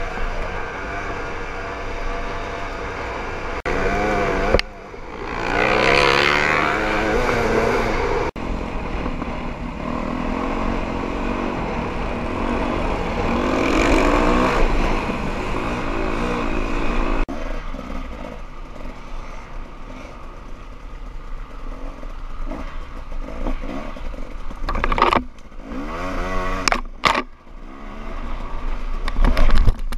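Dirt bike engine heard from the rider's own helmet camera, revving up and dropping back as it accelerates and shifts, with wind noise over the microphone. The sound changes abruptly several times where separate riding clips are joined, and a few sharp knocks come near the end.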